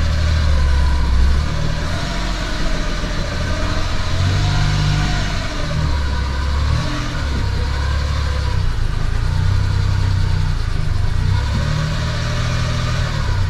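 Suzuki Carry mini truck's small three-cylinder engine running at low speed while being maneuvered, its revs going up and down, with a whine that rises and falls.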